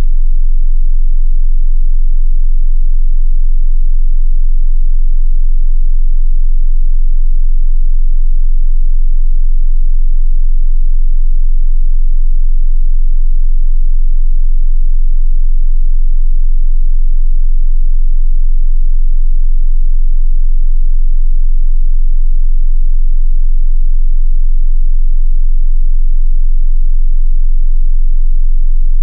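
A continuous 22 Hz sine-wave test tone, a steady deep bass tone for testing subwoofers, unchanging in pitch and level.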